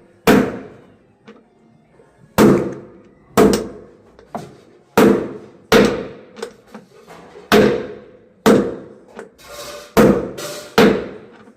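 Hammer blows on metal, about nine strikes spaced roughly a second apart, each ringing out after the hit: the work of knocking a washing machine drum bearing out or in.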